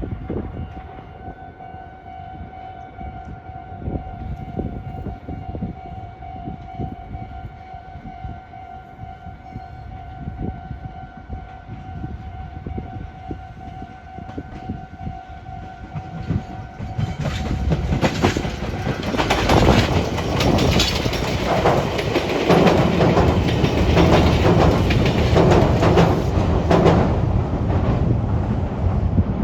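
An electric train passing through a railway junction. A steady whine and scattered clicks come first, then, just over halfway through, a loud, dense clatter as its wheels run over the rail joints of the points.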